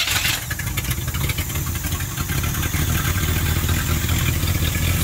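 Third-generation Chevrolet Camaro's carbureted engine running steadily at idle just after being started, on a freshly fitted Holley carburetor with newly added vacuum lines.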